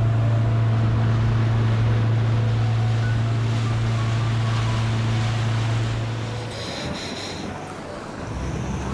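Boat engine running steadily under the rush of wind and water, then eased off about six and a half seconds in, settling to a lower note near the end.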